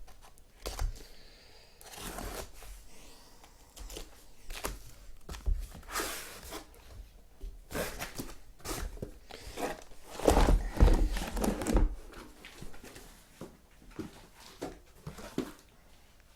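Cardboard card boxes and packing being handled: irregular rustling, crinkling and scraping, with dull knocks as boxes are moved and set down, the busiest stretch about ten seconds in.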